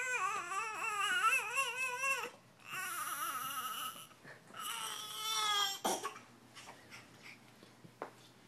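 A baby fussing in whiny, wavering cries: one long cry, then two shorter ones, the last falling in pitch. A sharp click follows about six seconds in.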